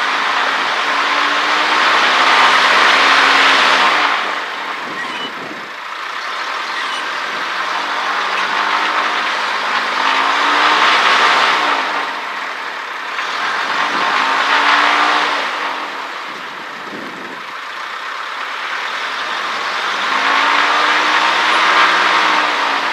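Cessna 152's four-cylinder Lycoming engine heard from inside the cockpit, its revs rising and falling in about four surges of power. This fits power being added to move the aircraft with the right wheel dragging, which the pilot takes for a stuck right brake (the tyre had blown out).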